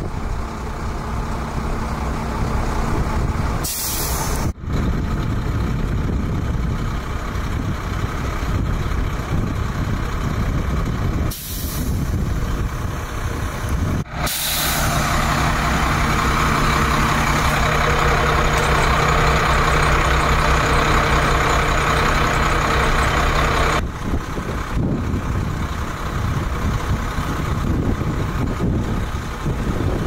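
Fire truck's diesel engine idling steadily, with a few short hisses of air like air-brake releases. The engine sound grows louder and fuller for about ten seconds in the middle, then drops back.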